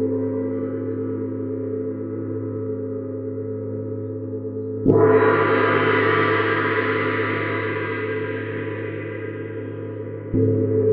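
Neptune gong struck with a soft fluffy mallet, ringing with a deep sustained hum. A stroke about five seconds in is the loudest, adding a bright shimmer that slowly fades, and another stroke comes near the end.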